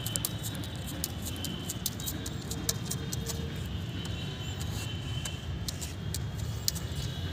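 A dog's claws clicking irregularly on a tiled floor and a plastic football knocking as the Labrador handles it in its mouth, over a steady low rumble.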